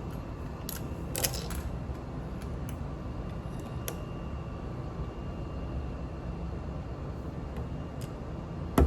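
Scattered light clicks of plastic LEGO bricks being handled and pressed together, a stronger click near the end, over a steady low background hum.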